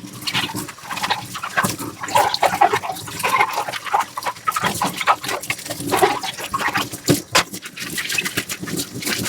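Dishes being washed by hand: a sponge scrubbing dishware in short, irregular strokes, with scattered clinks and knocks of dishes against each other and the sink.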